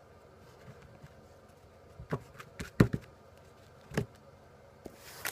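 Handling of trading cards and their packs: three light knocks and taps, the one in the middle loudest, then a foil booster-pack wrapper beginning to crinkle near the end.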